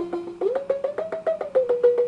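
Synthesized output of a DIY Eurorack DSP module patched as two oscillators into a balanced (ring) modulator and a filter: a rapid ticking pulse, about seven a second, over a tone that dips low, glides up, then drops back and holds steady.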